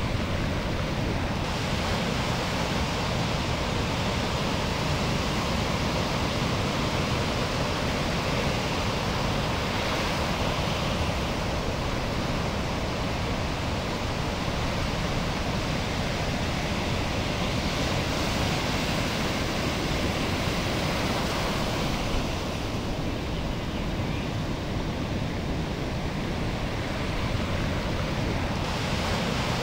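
Steady rushing noise of ocean surf and moving water, heard from a camera held at water level among breaking waves.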